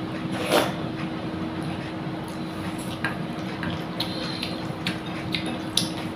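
Eating by hand from a plate: wet squishing of rice and mung dal being mixed, with small clicks against the plate and a brief louder noise about half a second in, over a steady low hum.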